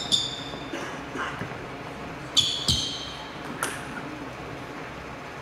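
Table tennis ball bouncing between points: a ringing click just after the start, two louder bounces about two and a half seconds in, and a fainter one about a second later, over low chatter in the hall.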